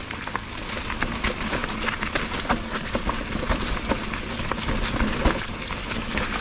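Mountain bike rolling fast down a damp dirt singletrack: knobby tyres on the wet soil with a low rumble, and many quick clicks, knocks and rattles from the bike jolting over bumps and roots.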